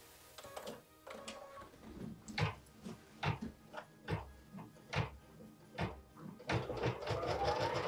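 Baby Lock embroidery machine being loaded and starting the tack-down line. The hoop clicks into the embroidery arm, then sharp mechanical knocks come about once a second, and a rising motor whine starts near the end.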